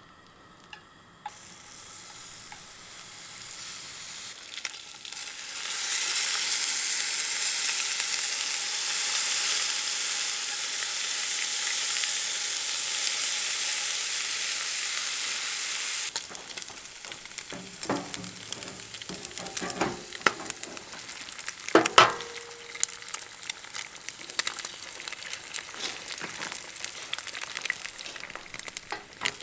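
Pork belly and eggs frying in a pan: a loud sizzle that builds over the first few seconds, then drops off sharply about halfway through. Quieter sizzling follows, with scattered clicks and knocks of utensils against the pan.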